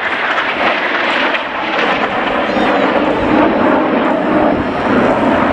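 Jet noise from a formation of Northrop NF-5 jet fighters flying past: a steady, loud rushing noise.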